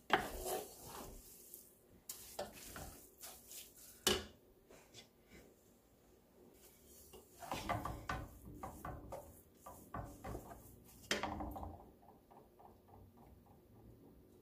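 Wooden spatula stirring and tossing rice vermicelli in a large stainless steel pot, with irregular knocks and scrapes against the metal.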